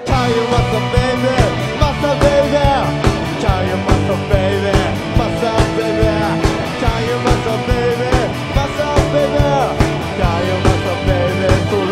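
Live rock band playing loudly, with a steady drum beat under a pitched melody line.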